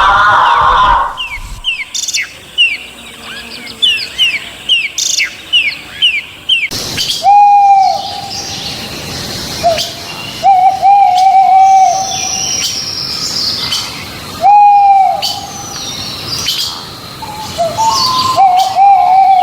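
Recorded bird calls: after the tail of a loud cry in the first second, a run of quick falling chirps, about two a second, then from about seven seconds in, repeated level hooting calls, each about a second long, with higher short notes between.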